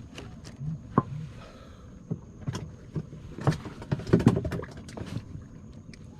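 Irregular knocks, taps and clatter of people moving and handling gear in a small fishing boat, with a sharp knock about a second in and a busier run of knocks past the middle.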